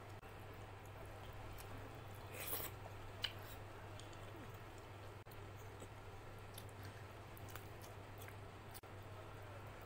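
Close-up eating sounds: fingers squishing rice and chicken curry on a steel plate, and chewing, heard as soft scattered clicks and wet smacks, with a brief louder burst about two and a half seconds in. A steady low hum runs underneath.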